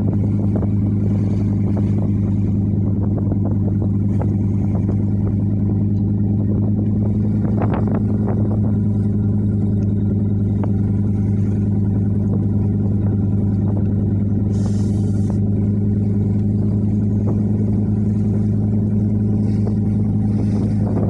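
A fishing boat's diesel engine runs steadily at constant speed, a deep, even drone that does not change in pitch. A brief hiss comes about two-thirds of the way through.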